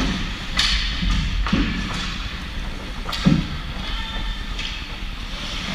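Several dull thumps and knocks, the loudest about three seconds in, over a steady hiss and low rumble, typical of play during a game.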